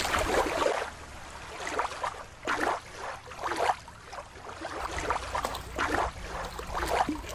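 Shallow water sloshing and splashing at the water's edge, coming in irregular surges about every half second to a second.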